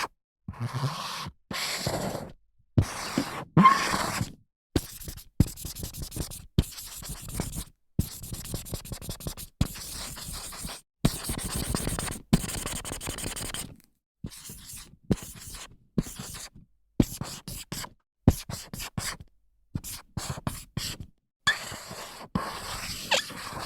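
A string of short whiteboard sounds: dry-erase marker strokes squeaking and scraping across the board, each clip cut off by a moment of silence.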